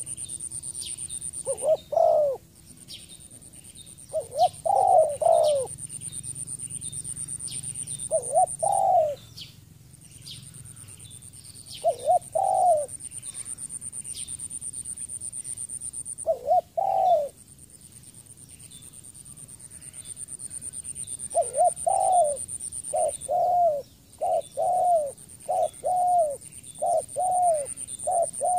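Spotted dove cooing: arched coo notes in short groups every few seconds, then a faster run of about two notes a second in the last several seconds.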